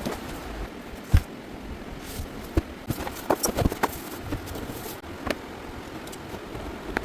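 Sharp clicks and knocks of hard objects being handled, the loudest about a second in and a quick cluster around three to four seconds in, over a steady background hiss.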